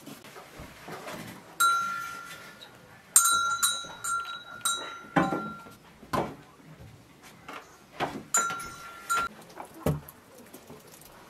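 Metal clinks, each ringing briefly at the same pitch and fading: one about a second and a half in, a quick cluster of four a little past three seconds in, and another around eight seconds, with a few duller knocks between.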